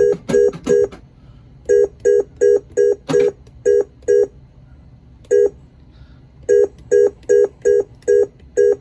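Williams WPC pinball MPU board beeping in switch test: a short identical electronic beep for each switch closure, in quick runs of about four a second with pauses between runs, a sign that the switch matrix rows and columns are reading.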